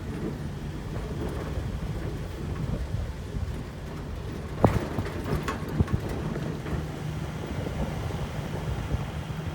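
A vehicle driving along a rough road, heard from inside: a steady low engine hum and road rumble, with a few sharp knocks from bumps about halfway through.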